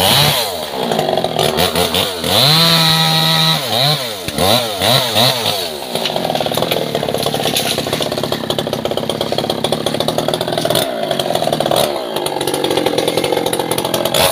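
Two-stroke petrol chainsaw revved up and dropped back several times in the first six seconds. It then runs steadily at a lower speed and revs up again near the end.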